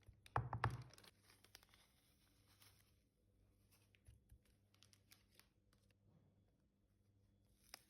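Quiet handling noises: a short knock with a rustle about half a second in, then faint scattered clicks and crinkles.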